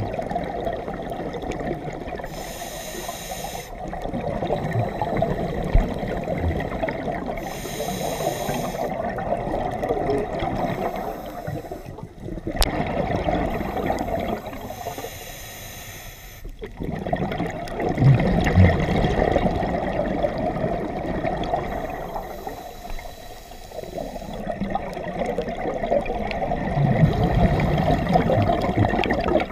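Scuba diver breathing through a regulator underwater. Short hissing inhalations come every several seconds, between longer stretches of bubbling exhalation.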